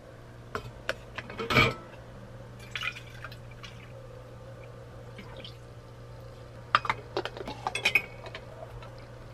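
Cold brew coffee poured from a stainless steel pitcher into a stainless steel tumbler, with sharp metal clinks and taps, the loudest about a second and a half in. Near the end a cluster of clicks and clinks as the plastic lid and metal straw go onto the tumbler. A steady low hum runs underneath.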